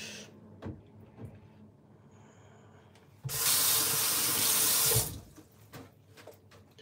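Kitchen tap running into a stainless steel sink for about a second and a half while hands are rinsed under it, starting and stopping abruptly. A few light clicks and knocks come before it.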